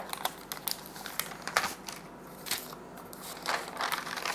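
Parchment paper crinkling and crackling in short, irregular bursts as it is handled and peeled off a sheet of puff pastry.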